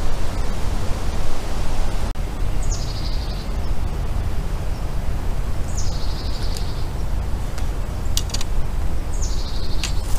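Steady low rumble of wind buffeting the microphone, with a songbird singing the same short high, buzzy phrase three times about three seconds apart. A few light clicks near the end.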